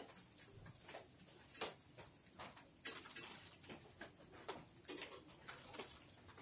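Faint, irregular scuffles, rustles and light clicks as a dog and a kitten play-wrestle on a cloth sack, the kitten pawing and scrabbling under the dog's mouthing. The sharpest click comes about three seconds in.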